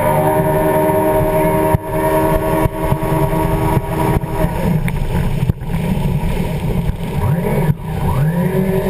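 Yamaha jet ski running at speed: a steady engine drone mixed with rushing water and wind. After about four and a half seconds it turns rougher, and the sound drops out for an instant about four times.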